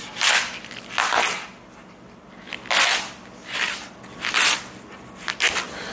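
Packaging being handled: several short rustles and crinkles of plastic, paper and cardboard.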